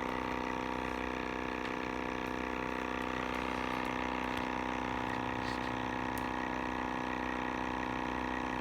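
Sibata air sampler's pump motor running, a steady hum made of many even tones that does not change.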